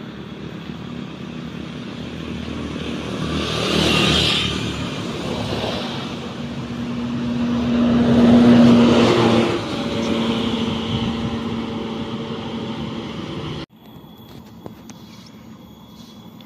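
Buses driving past on the road, their engine and tyre noise swelling to a peak about four seconds in and again, louder, around eight seconds in. The sound cuts off abruptly near the end, leaving quieter traffic noise.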